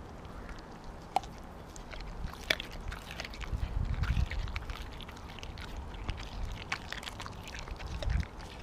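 Siberian husky chewing and biting a whole raw mackerel: irregular crunches and clicks of teeth on the fish, with a low rumble swelling around the middle and again near the end.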